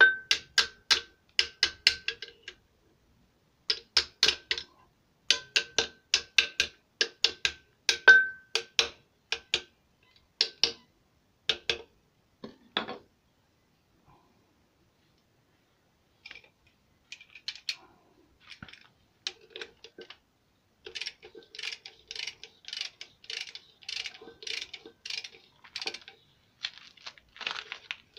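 A socket ratchet clicking in quick runs as it works the flywheel bolts of a Peugeot 504 diesel engine. There is a pause of a few seconds partway through, and a longer, denser run of clicking near the end.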